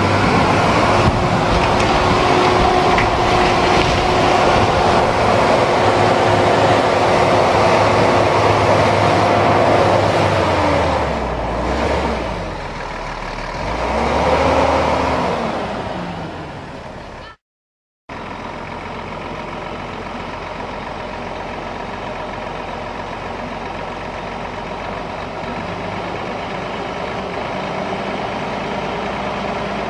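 A Volvo semi truck's diesel engine running as the truck crawls along, its pitch steady, then falling about ten seconds in and rising again briefly near fifteen seconds. After a brief break in the sound the engine keeps running steadily at a lower level.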